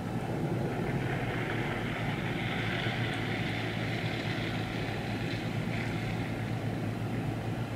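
Steady outdoor background noise: a constant low rumble with a hiss that swells in the middle and fades again.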